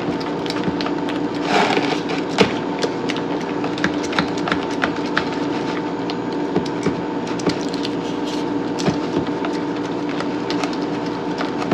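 Silicone spatula stirring cobbler batter in a metal mixing bowl: a quick, continuous run of small scrapes and clicks against the bowl as the lumps are worked out, over a steady low hum.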